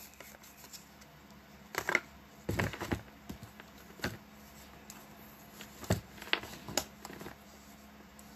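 Oracle cards and their cardboard deck box being handled: scattered light taps and rustles, a few at a time, the firmest about two and a half seconds in and about six seconds in.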